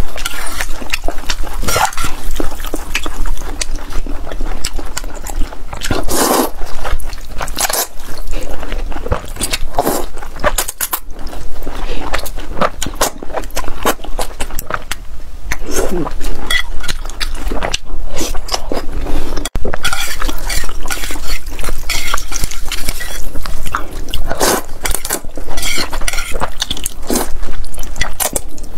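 Close-miked slurping and chewing of soy-sauce glass noodles, many short wet mouth sounds coming irregularly, with now and then a light clink of chopsticks against the pot.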